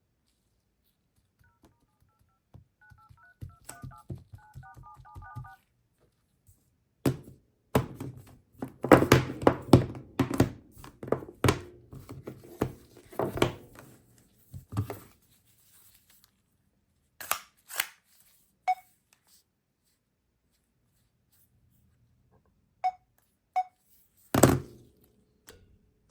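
Mobile phone handling: a quick run of short two-tone keypad beeps, then a stretch of tapping, clicking and knocking on the handset. Later come a few short single beeps and one louder thump near the end.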